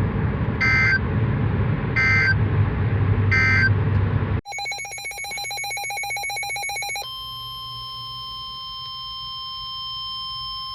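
Three short warbling data bursts of an EAS/SAME digital header, about 1.4 s apart over background hiss and hum: the end-of-message code closing a flood warning. After an abrupt cut comes a rapidly pulsing electronic alert tone. It gives way at about 7 s to a steady single-pitch tone, the NOAA Weather Radio warning alarm tone that precedes the next alert.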